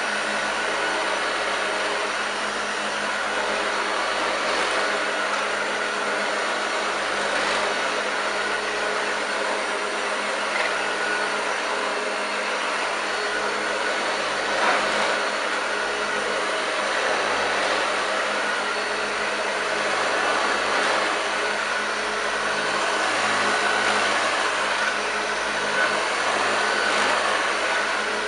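1981 Hoover Junior U2190 hardbag upright vacuum cleaner running steadily on carpet with no dust bag fitted, its motor and brush making a continuous growl, with a few brief clicks along the way.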